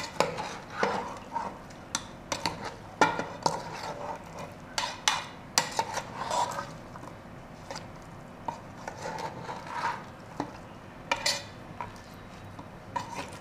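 A metal spoon stirring raw beef pieces, onions, tomatoes, spices and water in an aluminium pressure cooker. Irregular clinks and scrapes of the spoon against the pot sound among the chunks of meat and vegetables.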